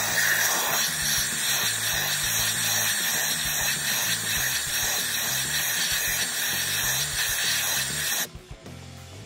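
Compressed-air blow gun hissing steadily as it blasts out an empty head-bolt hole in the cylinder head, clearing it before a head stud goes in. The air cuts off suddenly about eight seconds in.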